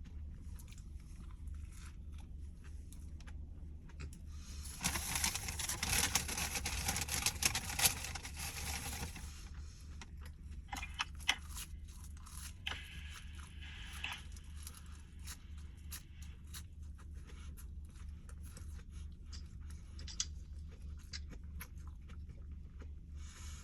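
Close-miked eating of McDonald's food: chewing and biting, with about four seconds of loud paper wrapper crinkling and rustling a few seconds in, then scattered small crunches and clicks. A low steady hum lies underneath.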